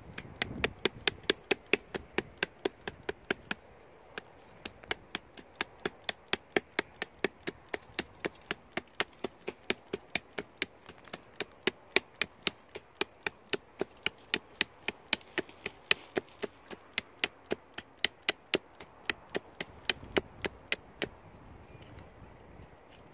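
Small hatchet of a Gootoop multi-tool chopping at the base of a thin wooden stem: quick, light strikes at about three a second, which stop shortly before the end.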